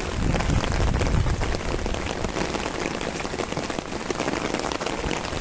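Rain falling steadily: many fine drop ticks over an even hiss, with more low rumble in the first second or so.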